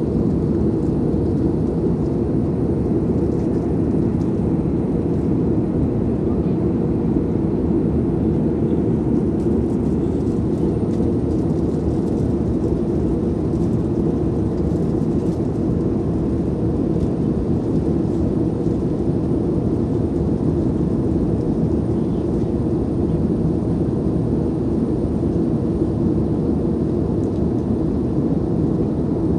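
Steady low drone of an airplane in flight, heard from inside the cabin, unchanging throughout.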